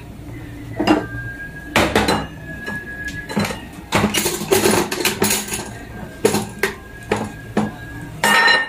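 A metal utensil clinking and knocking against a cooking pot in about ten irregular knocks. One knock leaves a thin metallic ring hanging for a couple of seconds.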